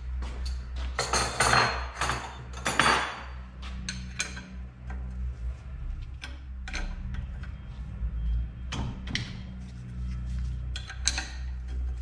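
Metal tool clinking and scraping against an old turbocharger as it is stripped down, over background music with a steady bass line.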